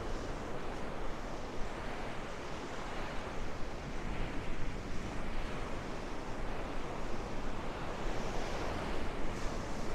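Surf washing onto a sandy beach, with strong wind buffeting the microphone in a steady low rumble.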